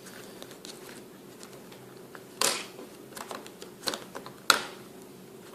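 Scattered small clicks and taps of phone parts and a small tool being handled during reassembly of a Samsung Galaxy S3, several sharp ones in the second half.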